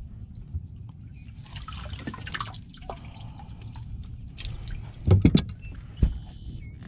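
Water splashing and dripping as a landing net is scooped through a boat's livewell, dipping for a live golden shiner, followed by several loud knocks about five and six seconds in.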